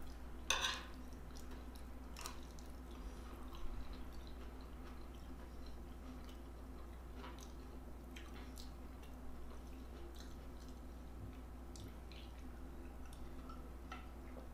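Close-up chewing and mouth sounds: a person eating, with scattered wet smacks and clicks, the loudest about half a second in, over a steady low hum.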